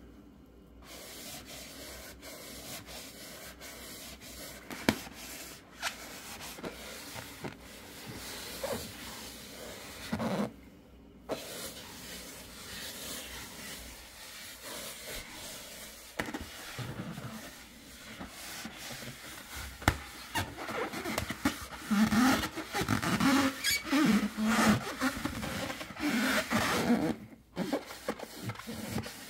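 A large latex balloon being hugged and squeezed: rubber rubbing and squeaking against skin and sleeves, with scattered sharp taps and scratches from long stiletto nails on the latex. The rubbing and squeaking grow louder in the last several seconds, then ease off near the end.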